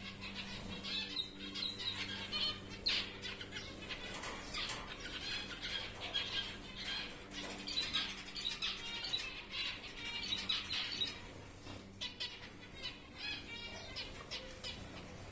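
A flock of zebra finches calling in a flight aviary: many short, overlapping calls that come thick and fast, over a steady low hum.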